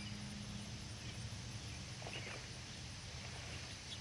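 Quiet outdoor ambience by a pond with a low hum that fades out, and a brief bird call about two seconds in.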